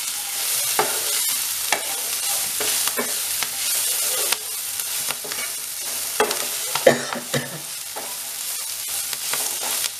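A wooden spatula stirs fenugreek leaves, peas and potatoes in a nonstick pan over a steady sizzle of frying, with irregular scrapes and taps of the spatula against the pan. A few louder knocks come about two-thirds of the way through.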